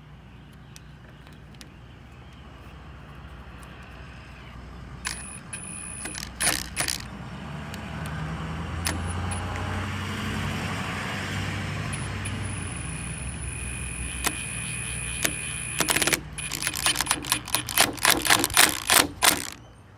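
Power drill driving screws into the corner of an aluminum window frame: brief runs of the drill's high motor whine, then a quick series of sharp metallic clicks and knocks near the end. A low rumble swells and fades in the middle.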